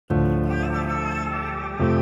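Background music of sustained, held chords that come in suddenly and change to a new chord near the end.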